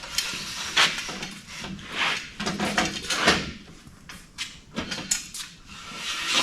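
Metal brackets and hardware being handled and fitted onto a miter saw stand: scattered clinks, knocks and short rattles.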